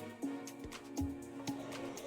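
Soft background music: held notes with a gentle beat struck about twice a second.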